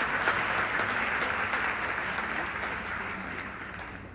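Audience applause, the clapping dying away steadily.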